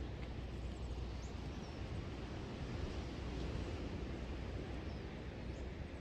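Steady outdoor background noise: a low rumble with a hiss over it, with a few faint, short, high bird chirps.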